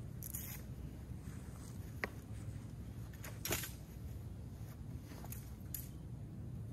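Scattered short clicks and rustles of small objects being handled, the loudest about three and a half seconds in, over a steady low rumble.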